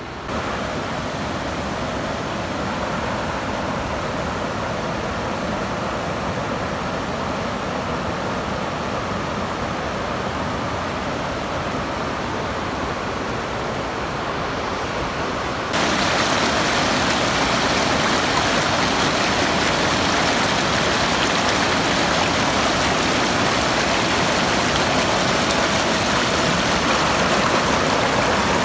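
Waterfall and rapids, water rushing over rocks in a steady, even rush. About halfway through it becomes suddenly louder and brighter, as the white water comes close.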